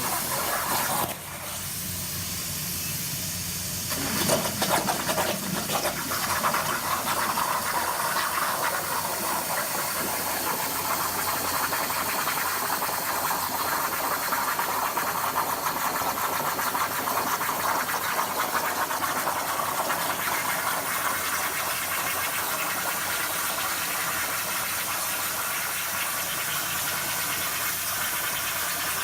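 CNC plasma cutter torch cutting metal, a steady loud hiss. It drops away about a second in and comes back loud around four seconds in.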